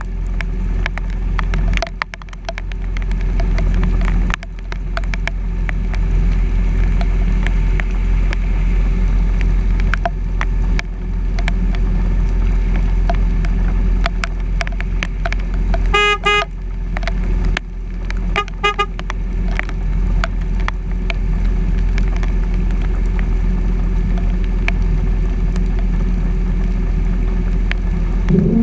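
Truck driving through flooded, rain-soaked streets: a steady low rumble of engine, road and water noise. A car horn sounds about halfway through, then again briefly two seconds later.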